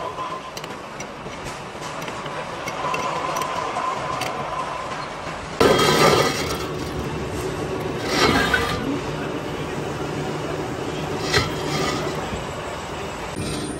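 Metalworking clatter: metal clinking and occasional knocks over a steady workshop din, which gets suddenly louder about five and a half seconds in.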